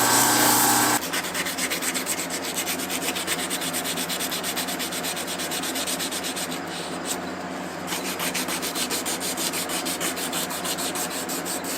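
A motor running steadily stops about a second in, and hand sanding follows: quick, even back-and-forth rubbing strokes, several a second, that ease off briefly past the middle.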